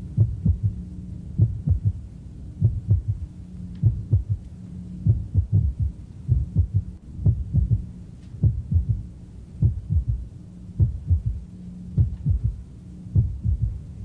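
Recorded heart sounds at the apex, patient lying on the left side: each beat is a cluster of low thumps with a very loud third heart sound just after the second, a three-part gallop about once every 1.2 s, over a steady low hum. The third heart sound is a filling sound, always pathological in adults and usually the sign of a dilated, poorly contracting left ventricle in failure.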